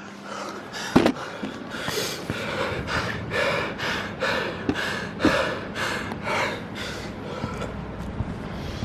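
A man panting hard from exertion, with quick, loud breaths about two to three a second, and a single knock about a second in.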